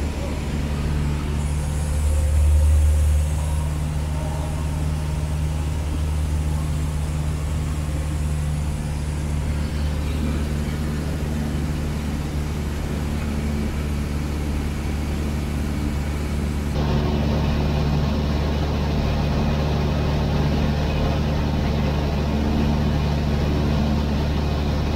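Cessna 152's four-cylinder Lycoming engine and propeller droning steadily in flight, heard from inside the cabin. The drone swells briefly a couple of seconds in, and its tone turns abruptly brighter about two-thirds of the way through.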